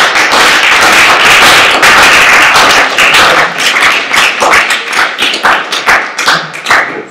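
Audience applauding: dense clapping that thins out to scattered claps over the last few seconds.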